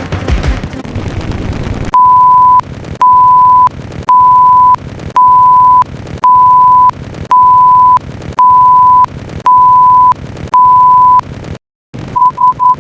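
Electronic beep tone at one steady pitch, sounding nine times, about once a second, each beep just over half a second long. After a short dead gap it returns as a quicker run of short beeps. Before the first beep there are about two seconds of noisy sound.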